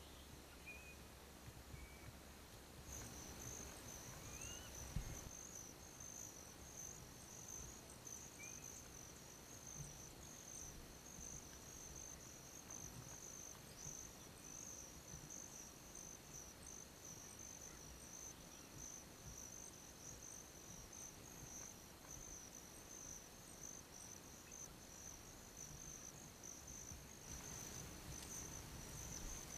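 Faint, steady insect chorus, a high trilling that starts about three seconds in, with a few short bird chirps in the first several seconds and a single soft thump about five seconds in.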